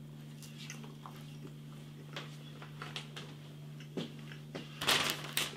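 Faint scattered clicks and handling noise over a steady low hum, then a plastic bag of fries crinkling about five seconds in.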